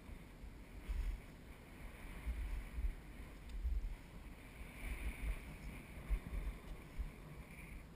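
Wind buffeting an action camera's microphone in irregular gusts during a descent over snow, over a hiss of sliding on snow that grows louder from about halfway through.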